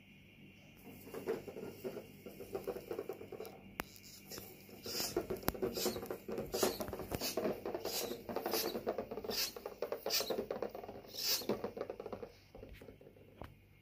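Homemade cardboard-box toy bus pulled across carpet on a string: a scratchy, clicking rustle of cardboard wheels turning on wooden-stick axles and the box scuffing the carpet. It gets louder and busier about five seconds in and eases off shortly before the end.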